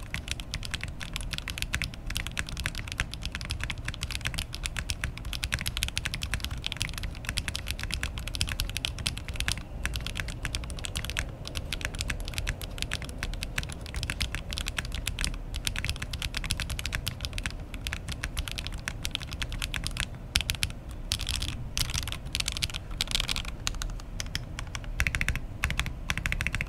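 Oasis65 mechanical keyboard being typed on continuously in a sound test: a fast, dense run of keystrokes, with some louder, more separate strokes near the end.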